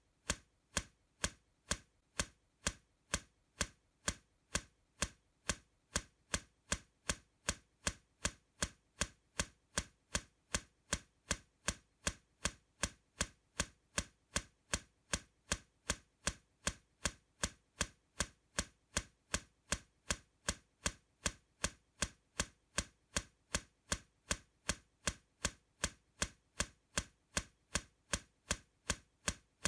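Ticking-clock sound effect: sharp, even ticks at about two a second, steady throughout.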